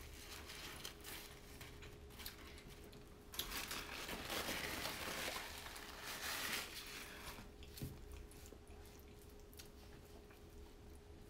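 Close-miked chewing of food, with a louder, noisier stretch of about four seconds in the middle.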